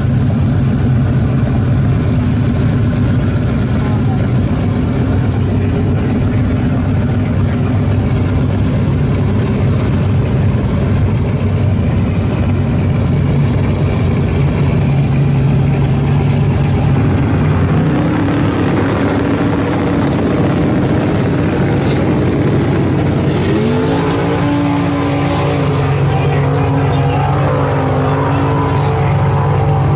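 Drag race car engine idling steadily with a deep, even note. A person's voice is heard over it from about three-quarters of the way through.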